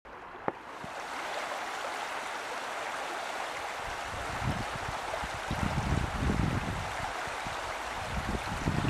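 Shallow river water running steadily over a stony riffle, a continuous rush. A single sharp click comes about half a second in, and irregular low rumbles join from about four seconds in.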